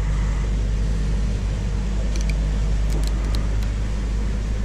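Steady low hum of a running motor, with a few faint light clicks about two to three and a half seconds in.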